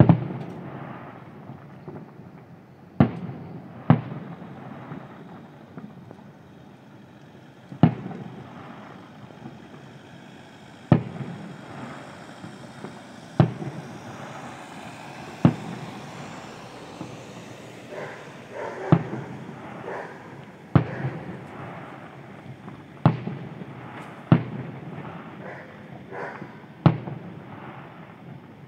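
Aerial firework shells bursting in a display: about fifteen sharp booms, one every one to four seconds, each trailing off in a rolling echo. A stretch of small crackles comes about two-thirds of the way in.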